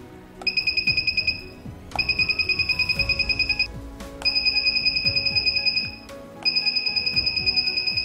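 Small buzzer on a TSOP1738 infrared-receiver circuit beeping in four bursts of about a second and a half each, every burst a fast stutter of high-pitched beeps, as the receiver picks up a TV remote's signal. Background music plays underneath.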